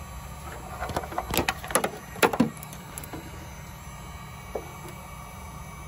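Handling noise: a quick cluster of clicks and knocks between about one and two and a half seconds in, with a single click later, over a steady low hum.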